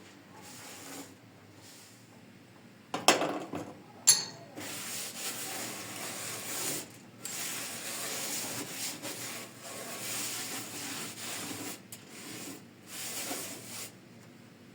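Two sharp knocks, then a long stretch of rough hissing noise in strokes several seconds long with short breaks between them, like something being rubbed or scrubbed.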